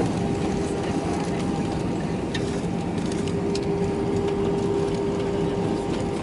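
Cabin noise of an Airbus A319 rolling out on the runway just after touchdown, with its wing spoilers up. A steady rush of engine and air noise carries a steady droning tone, and there are a few light clicks and knocks.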